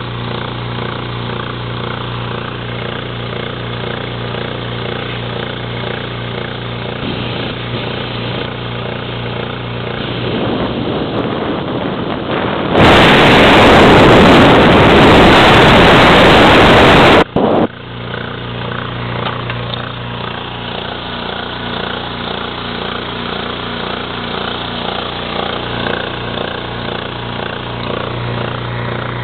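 SR-201 air compressor running steadily with a low hum and a rattling pump beat. About thirteen seconds in, a much louder rushing noise takes over for about four seconds and then cuts off suddenly.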